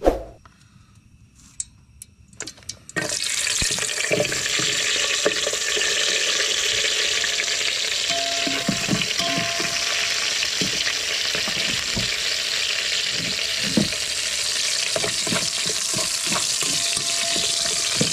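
Sliced shallots and garlic sizzling in hot oil in an aluminium pot, the sizzle starting suddenly about three seconds in and running steadily. A metal spoon scrapes and knocks against the pot as they are stirred. Before the sizzle there are a few light clicks.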